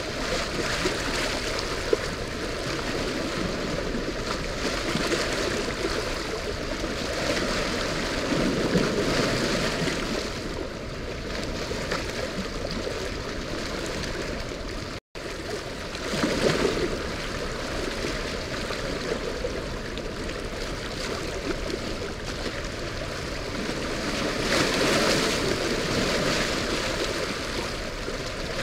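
Floodwater released from a dam rushing and churning through the tailrace: a steady rush of water that swells and eases every few seconds, with a brief break about halfway through.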